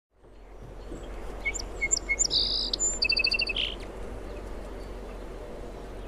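Parakeet calling: a cluster of short, high chirps and a quick run of repeated notes lasting about two seconds, then only a steady background hiss.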